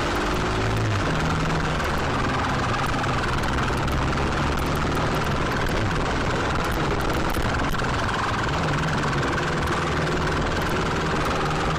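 Motorcycle engine running through city traffic, its pitch shifting slightly as the throttle changes, under a steady rush of wind noise on the rider's camera.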